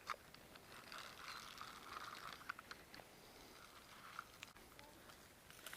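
Near silence: faint outdoor ambience with a few scattered light ticks.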